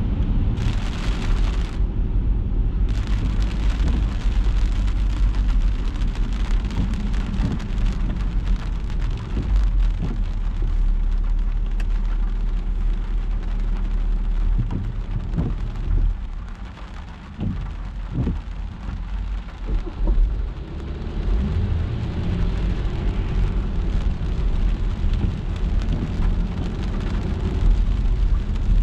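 Car driving through rain on wet city streets: a steady low road rumble under the even hiss of rain and tyres on wet tarmac, with a brief brighter hiss about a second in.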